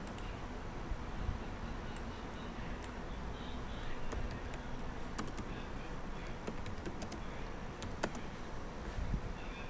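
Computer keyboard typing: scattered key clicks, thicker in the second half, over a steady hiss.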